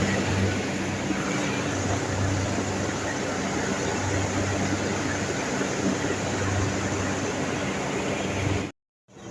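Chiller machinery running in a plant room: steady loud mechanical noise with a low hum that swells and fades irregularly, cut off abruptly near the end.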